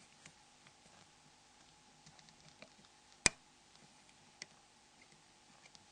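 Faint scattered clicks and ticks of a dental pick prying a phone's display shield loose from its clips, with one sharp click a little over three seconds in and another at about four and a half seconds.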